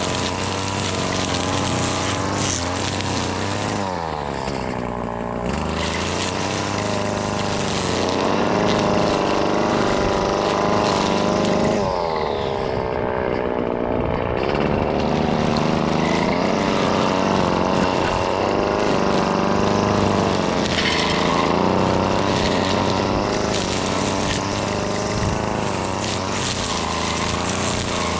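Husqvarna 525L two-stroke string trimmer running under load while cutting, its engine pitch dipping and rising again several times, most clearly about four seconds in.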